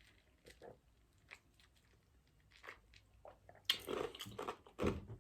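Crushed ice crunched between the teeth: a few faint small mouth clicks, then loud crunching starting about three and a half seconds in.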